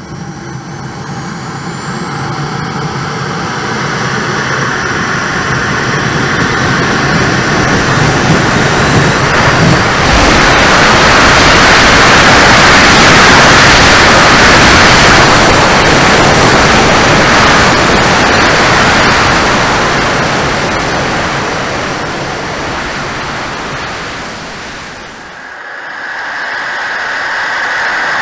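Small model jet turbine (TJ74) on an RC Rafale B, heard close up from a camera on the airframe: a high whine rises in pitch as it spools up, then a broad jet rush swells to full power through the takeoff and climb and slowly fades. Near the end the sound drops away suddenly and gives way to a different, steadier noise.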